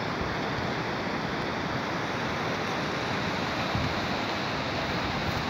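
Steady outdoor rushing noise, even and unbroken, with a brief low bump of wind on the microphone about four seconds in.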